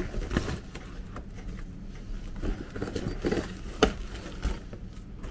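Rustling and crinkling of a foil-lined insulated lunch bag as gel ice packs and a plastic lunch box are pushed down inside, with a few light clicks and knocks of plastic.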